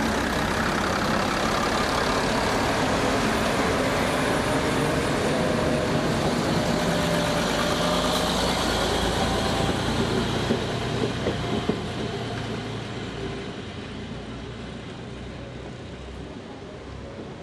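Italian FS two-car diesel railcar unit running past and pulling away, its diesel engines loud and steady at first and then fading as it moves off. A few short clacks come around the middle.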